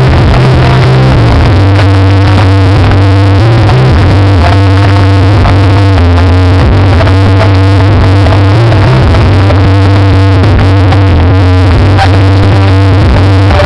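Loud electronic music with a deep bass line and synthesizer chords, recorded so hot that it is pinned at maximum level.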